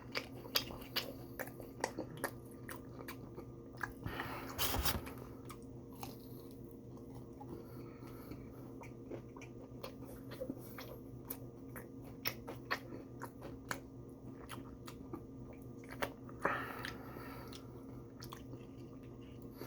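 Close-up chewing and biting of a fried breaded chicken strip: many wet mouth clicks and crunches. A steady low hum sits underneath, with a brief louder noise about four and a half seconds in and again near the end.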